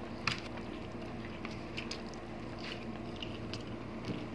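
Close-up eating sounds of braised pork hock being chewed and pulled apart by hand: soft wet mouth clicks and smacks scattered throughout, one sharper near the start, over a faint steady hum.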